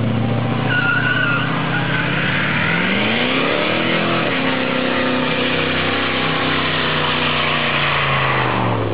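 Pickup truck doing a burnout: the engine revs up sharply about three seconds in and holds high while the spinning rear tyres squeal and hiss, and both fall away near the end.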